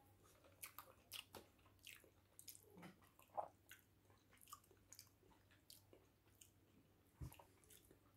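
Faint wet chewing and mouth smacking of potato fufu and egusi soup eaten by hand: a scatter of soft clicks and smacks, with one dull thump about seven seconds in.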